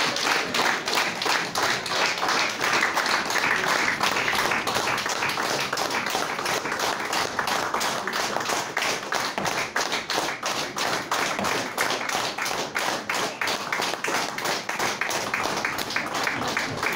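Audience applauding, the clapping falling into a steady rhythm of about four to five claps a second.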